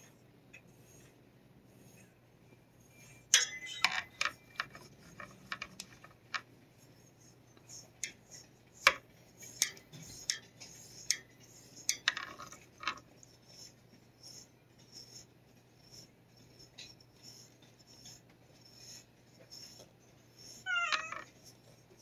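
Scattered light clicks and scrapes from a long-handled plastic cat brush being worked through cage bars, loudest in a few short clusters, then a short meow from the cat about a second before the end.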